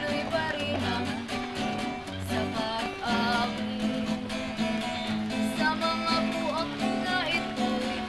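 Acoustic guitar music, strummed and plucked.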